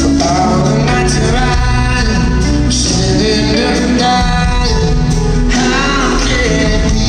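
Live band music with a man singing lead over electric guitar, keyboards and drums, heard from the seats of a large arena.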